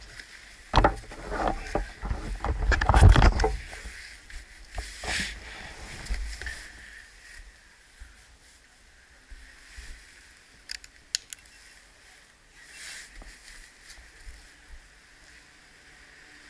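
Rumbling knocks and buffeting on the microphone of a motorcycle-mounted camera for the first few seconds, then a quieter steady hiss with a few sharp clicks about two-thirds of the way through.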